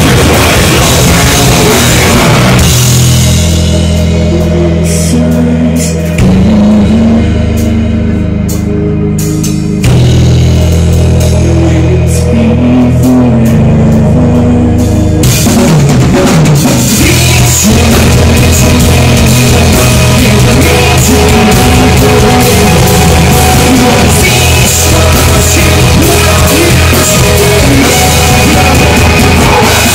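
Loud live rock band: distorted electric guitars, bass and a drum kit, with a vocalist singing into a microphone. From about three seconds in, the cymbals drop out and heavy, low sustained chords carry the song. About halfway through, the full band with cymbals comes back in.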